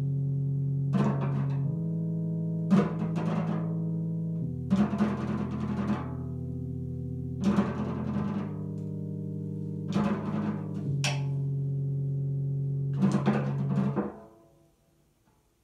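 Live jazz quartet playing closing chords: sustained low chords that shift every second or two, struck through with cymbal crashes. The last chord stops about fourteen seconds in and dies away.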